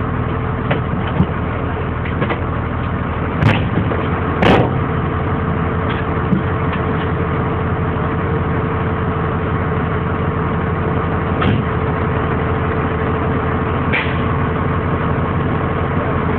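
Fire engine running steadily, its engine a constant drone, with a few sharp knocks and rattles, the loudest two about three and a half and four and a half seconds in.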